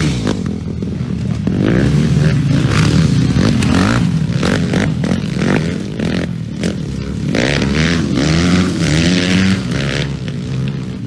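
Dirt bike engines revving hard as motocross bikes ride past, the pitch climbing and dropping again and again with throttle and gear changes.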